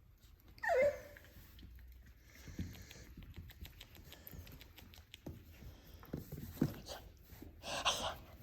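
Six-week-old Labradoodle puppies: one short, high yelp that falls in pitch under a second in, scattered small clicks and scuffles of play, and a harsh noisy burst near the end.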